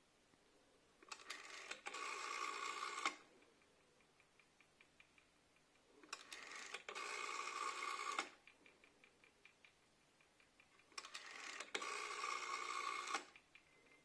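Rotary telephone dial turned and let go three times; each time it runs for about two seconds, getting louder, then stops abruptly. Faint, rapid, even ticking follows each turn.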